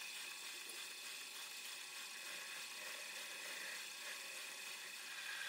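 Small metal lathe running steadily with the crankshaft spinning between centres: a faint, even whir with a thin steady whine.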